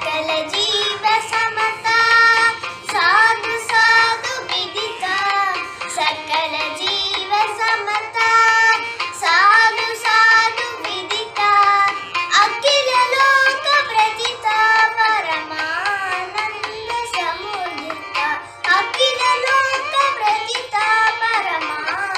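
A young girl singing solo, a melodic song of held, wavering notes with brief pauses between phrases.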